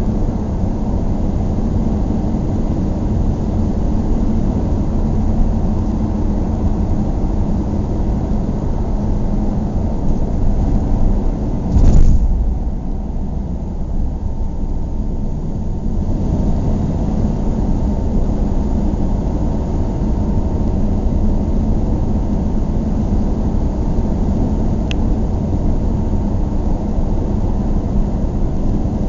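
Car engine running steadily with a low rumble and a constant drone, broken about twelve seconds in by a single loud thump, after which the upper hiss is briefly duller before the sound settles back.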